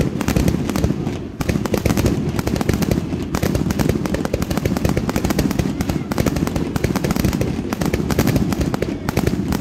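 Aerial fireworks firing in a rapid, unbroken barrage: many sharp pops and bangs each second as shots launch and burst, with crackling.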